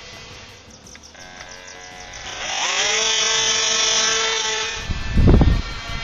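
Air Hogs Switchblade's twin small electric propeller motors whining: the pitch rises as they spin up about two seconds in, holds steady, then cuts off near five seconds. After that, wind buffets the microphone in loud gusts.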